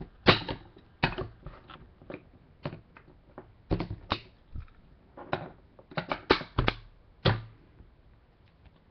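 Irregular clicks and taps of trading cards and hard plastic card holders being handled and set down on a stack. There are about twenty sharp clicks, some in quick pairs, which stop a little past seven seconds in.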